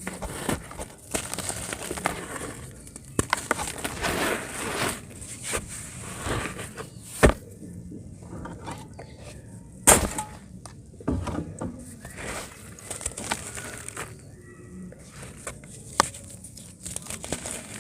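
Dry pure-cement chunks being crumbled and crushed, an irregular crackling with many small snaps and two sharp, louder breaks about 7 and 10 seconds in.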